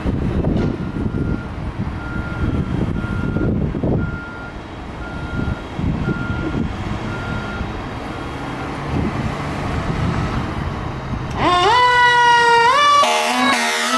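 The diesel engine of a 2018 Spartan Metro Star fire engine runs with a low rumble while an electronic warning beep sounds about once a second, then stops. About eleven seconds in, the siren starts with a rising wail, and a blast of the air horn cuts in near the end.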